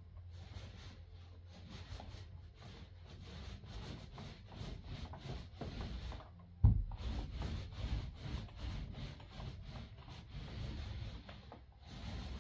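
Paint roller rolling across a wall in repeated rubbing strokes, with a single sharp thump about two-thirds of the way through.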